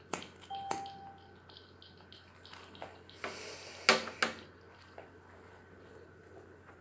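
Creaks and clicks of leather gloves and a leather shirt as a smoker moves his hand to and from a cigarette, with a long breath of smoke drawn or blown out about three seconds in and two sharp clicks right after it. A short steady electronic beep sounds near the start.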